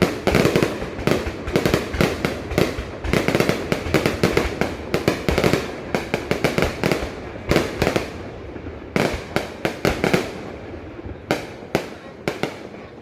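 Aerial fireworks going off in rapid, dense volleys of bangs and crackles. The volleys thin out briefly about eight seconds in, then pick up again in separate bursts.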